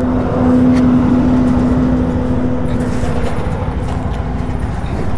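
Motor vehicle engine running at low speed, with a low rumble and a steady hum that fades out about four seconds in.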